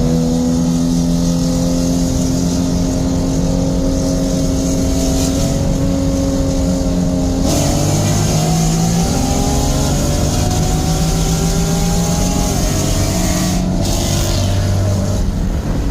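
Car engine and exhaust droning at steady cruising revs, the note slowly rising. About seven and a half seconds in the pitch jumps higher, then eases back down near the end.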